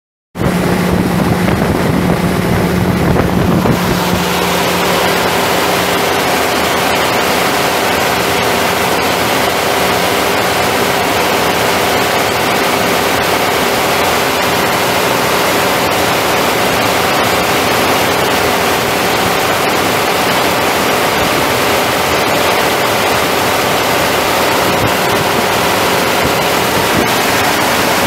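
Cummins six-cylinder turbo diesel engine of a 1983 AM General M915A1 semi truck running steadily. It comes in abruptly at full level, with no cranking. A low hum in it fades after about three and a half seconds.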